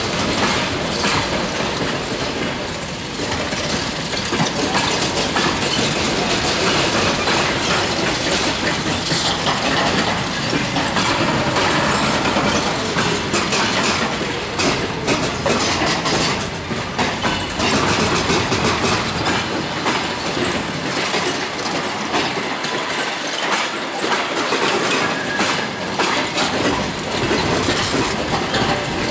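Passenger coaches rolling past, their wheels clattering over the rail joints in a steady clickety-clack.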